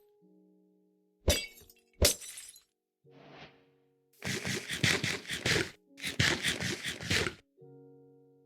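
Sharp cracking, breaking impact sound effects over sustained keyboard music notes: one hit a little over a second in, another at two seconds, then two rapid flurries of hits, about six a second, each lasting over a second.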